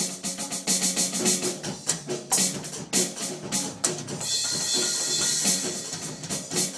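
Roland electronic drum kit played by a small child: irregular, unsteady drum and bass-drum hits, with a cymbal crash left ringing for over a second a little past the middle.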